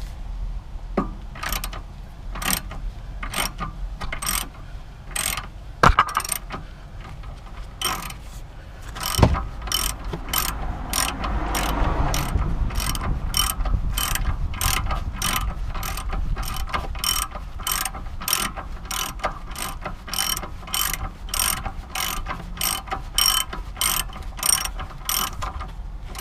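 Socket ratchet clicking on its back-swings as it undoes the 16mm nut on the anti-roll bar drop link at the lower suspension arm. The clicks come sparsely at first, then in a steady run of about two to three a second from about eight seconds in.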